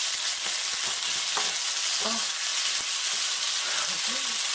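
Fried rice with ground pork sizzling in a nonstick frying pan as it is stirred with a wooden spatula and chopsticks: a steady, even sizzling hiss.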